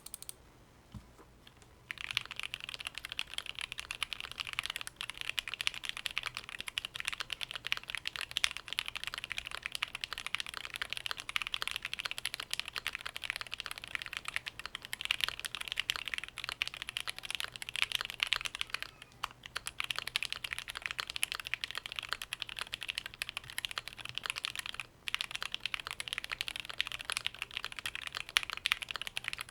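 Continuous fast typing on a KBDFans Mountain Ergo mechanical keyboard with lubed and filmed JWK Alpaca linear switches, a POM plate, plate and case foam, and GMK ABS double-shot keycaps. The typing starts about two seconds in and stops briefly twice in the second half.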